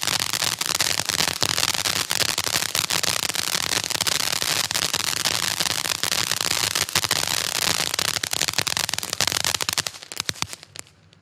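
Black Cat Tropical Thunder fireworks cake going off: a dense, continuous crackling with rapid pops and shots. It thins out about ten seconds in and dies away near the end.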